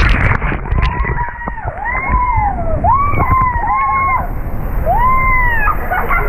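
Riders on an inflatable tube sliding down an enclosed water slide, yelling in about five rising-and-falling cries over a steady rumble of rushing water and the tube on the slide.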